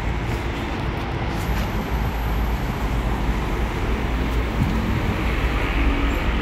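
Steady low rumble of motor vehicles running, with a constant hiss of traffic noise over it.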